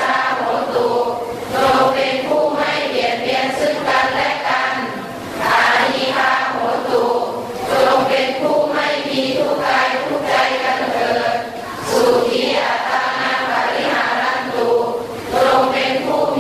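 A congregation of many voices chanting together in unison, in phrases a few seconds long with brief pauses for breath between them.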